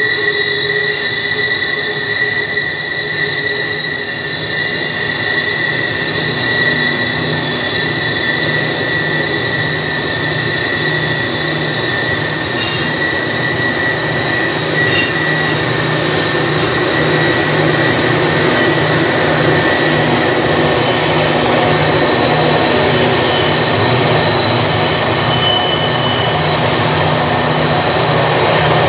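Double-stack intermodal cars of a freight train rolling around a tight curve, their wheel flanges squealing steadily and high-pitched over the rumble of the wheels, with two sharp clanks near the middle. In the second half the low hum of the EMD SD40E rear helper diesel locomotives grows as they approach.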